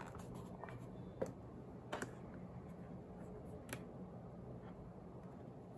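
A few light clicks and taps from handling a GPD Pocket mini laptop as its lid is opened and its keys are touched, the sharpest about a second in, over a faint steady low hum.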